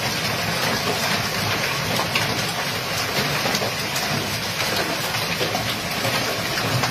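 Hailstones pelting down steadily in a dense hiss of countless small impacts on the ground and nearby surfaces.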